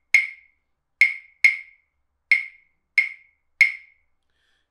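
Pair of wooden claves struck together, playing the 2-3 clave rhythm, the most typical rhythm in Latin music. Six sharp, bright clicks, each ringing briefly at one pitch, the last about three and a half seconds in.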